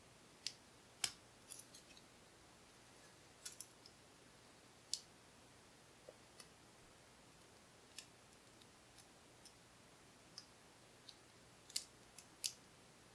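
Faint, irregular metallic ticks and clicks of a hook pick and tension wrench working the pin stack of a Kwikset-keyway pin-tumbler lock, a few ticks louder than the rest.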